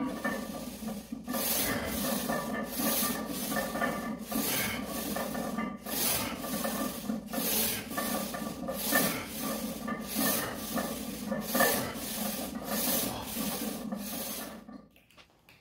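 Forceful, rhythmic breathing of a man straining through leg press reps, each breath a rasping rush of air, repeating roughly every half second; it stops abruptly near the end.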